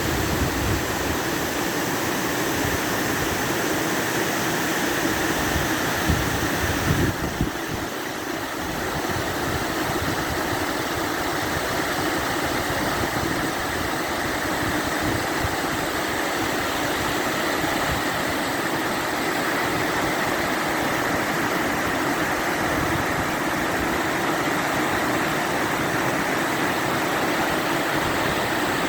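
Waterfall rushing in a steady, even noise, with a few bumps and a brief change in tone about seven seconds in.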